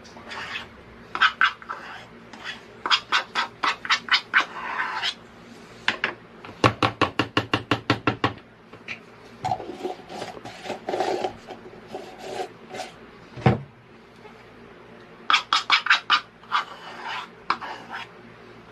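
Bursts of sharp clicking and crackling as food is handled and broken up by hand over a ceramic bowl, including a fast, even run of clicks partway through and a single knock later on.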